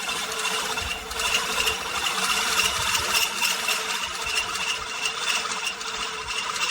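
LawnMaster LMRM1602 16-inch five-blade push reel mower rolling along, its spinning reel giving a steady whirring with a continuous ratchet-like clicking.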